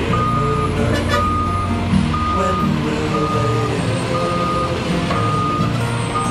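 A truck backing up: its reversing alarm beeps about once a second, six times, over the low, steady running of its engine.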